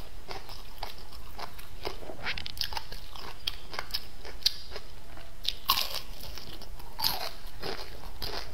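Close-miked eating sounds of a person biting and chewing crisp pan-fried crucian carp: irregular crunches with a few louder ones past the middle.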